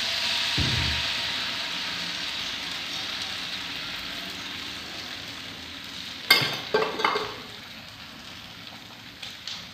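Beaten eggs sizzling as they are poured into a hot frying pan, the hiss slowly dying down as the egg sets. A low thump comes about half a second in, and a few sharp knocks come a little past the middle.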